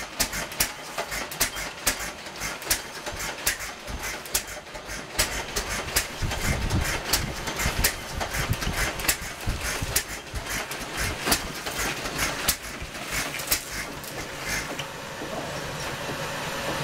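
Wild rice processor driven by a c.1920 Nelson Bros. Little Jumbo hit-and-miss engine, running: sharp clacks a few times a second, unevenly spaced, with a heavier low rumble about six seconds in. The engine seems to have trouble running right.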